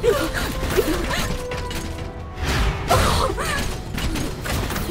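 Cartoon robot sound effects: the mechanical limbs of robotic spider drones clanking and ratcheting, mixed with several short rising-and-falling squawks from a captured robot parrot.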